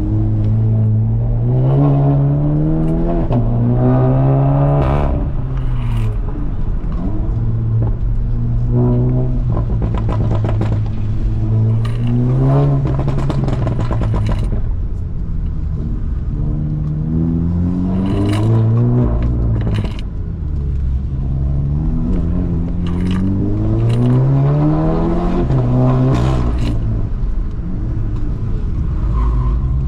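Volkswagen Jetta GLI's turbocharged 2.0-litre four-cylinder engine driven hard around an autocross course. It revs up in long rising sweeps and drops back, four times over, with sharp clicks and rattles scattered through.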